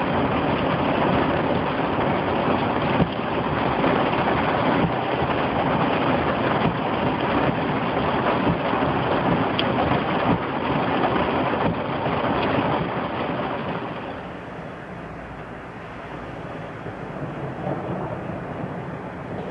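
Heavy rain on a moving car, with tyre and road noise, heard from inside the cabin as a dense steady hiss with faint ticks of drops. About 14 seconds in it gives way to a quieter steady hiss.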